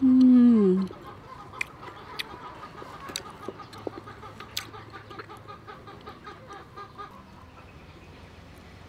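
A woman's short, falling "mmm" of enjoyment as she tastes the food, then a hen clucking in quick, steady pulses for several seconds, with a few light clinks of a metal spoon and fork.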